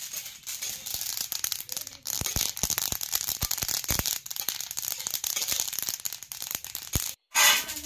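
Dry rice grains being stirred and scraped with a metal spatula in an iron pan as they dry-roast, a dense rattling and scraping full of small clicks that gets louder about two seconds in. Near the end the sound cuts out for a moment, followed by a short loud burst of noise.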